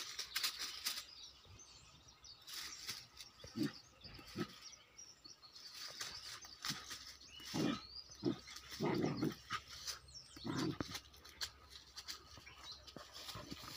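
A young dog's short, low play growls and grunts while wrestling with a cat, about half a dozen of them through the middle stretch, over the light crackle of dry leaves being trampled.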